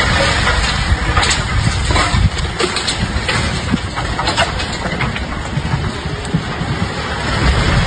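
Tall concrete chimney giving way at its base and toppling: a steady noisy rumble broken by sharp cracks, about a second in and again near two, three and four and a half seconds.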